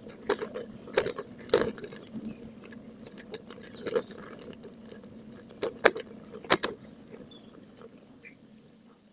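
Bicycle rattling as it rolls over the joints and cracks of a concrete-slab path: irregular sharp clicks and clatters over a steady low rumble of the tyres, dying down near the end.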